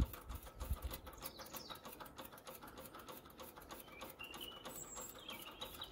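Hand-operated fuel lift pump on a Lister B engine being worked steadily, a faint run of repeated light clicks as it fills the carburettor with fuel.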